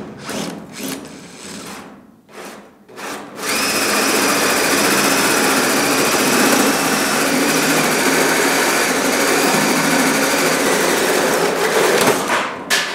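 Cordless drill driving a hole saw through a steel firewall panel. A few short bursts come as the cut starts, then about nine seconds of steady cutting with a high whine. It stops near the end as the saw breaks through.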